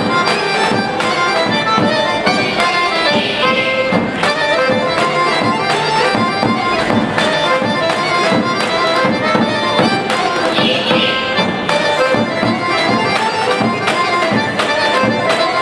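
Bulgarian folk dance music for a horo: a melody over a steady held drone, driven by a quick, even beat.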